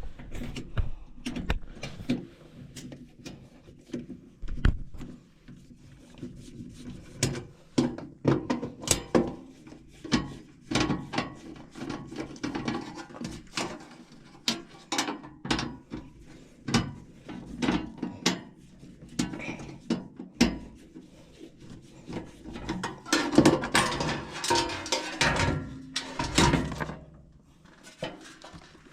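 Irregular clatter of hand tools, screws and sheet-metal parts being handled on a furnace, with a busier stretch of handling near the end, over a faint low hum.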